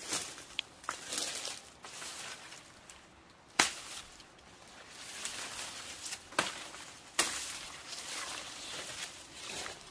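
Rustling and handling noises broken by three sharp knocks, the loudest a little over three and a half seconds in and two more a few seconds later.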